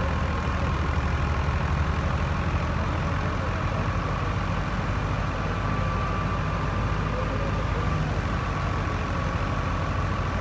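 NH Ghazi tractor's diesel engine running steadily under load, driving a wheat thresher, with the thresher's steady hum and a faint high whine over the engine's low drone.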